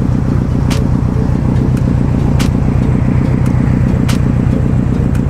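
Subaru WRX STI's turbocharged flat-four boxer engine idling with a steady, fast-pulsing low rumble.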